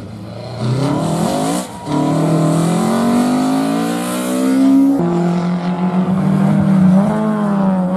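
Rally car engine revving hard as the car pulls away and accelerates. Its pitch climbs with a short lift about one and a half seconds in, then rises steadily to a gear change about five seconds in.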